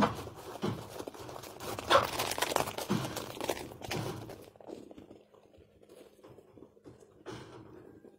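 Irregular crunching and rustling noises, loudest near the start and about two seconds in, thinning to faint scattered clicks over the last few seconds.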